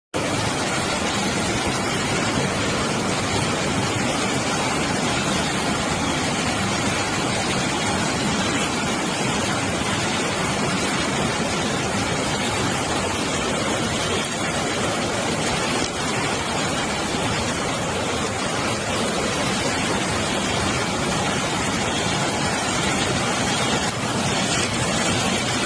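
Floodwater rushing: a steady, even rush of fast-moving water with no pauses.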